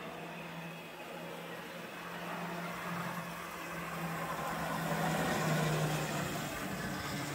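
Model Pennsylvania PA1 diesel locomotive running along the track: a steady electric-motor hum with rolling noise from the wheels. It grows louder past the middle as the locomotive comes close, then eases slightly.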